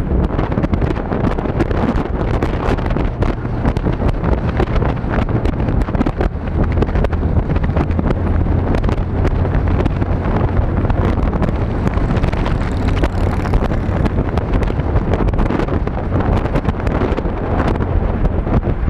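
Motorcycle engine running steadily at cruising speed, heard from the rider's seat, under heavy wind buffeting on the microphone. The engine's low hum drops in pitch about six seconds in.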